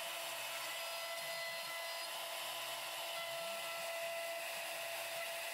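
CNC router spindle running with a steady whine as its bit makes the outside profile cut in a white plastic sheet.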